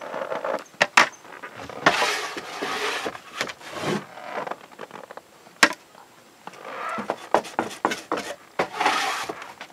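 Rummaging through a wooden trapping box of steel traps and hardware: irregular metallic clanks and knocks with scraping against the wood, quieter for a spell in the middle.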